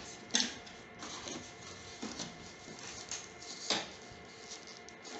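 Plastic clicks and rustles of hands working the casing of a split air conditioner's indoor unit and pulling out a white plastic hose, with two sharper knocks, about half a second in and again about two-thirds of the way through.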